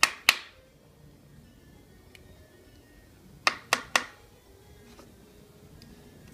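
Carbon-steel Opinel folding knife shaving curls down a wooden stick to make a feather stick: two sharp cutting strokes at the start, then three more in quick succession about three and a half seconds in. Soft background music plays underneath.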